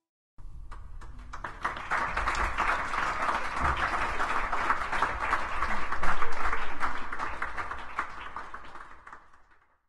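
Audience applauding: the clapping starts abruptly, builds over the first couple of seconds, and fades away near the end.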